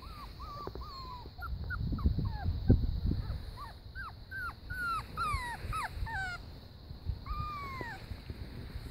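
Puppies whimpering: a run of short, high whines, many of them falling in pitch, with two longer drawn-out whines about seven seconds in.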